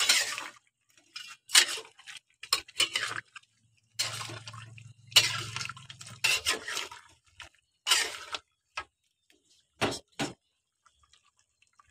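Metal spatula and spoon stirring wet, saucy chicken in a steel wok, with irregular scrapes and clinks of metal on metal. Two sharp clicks about ten seconds in.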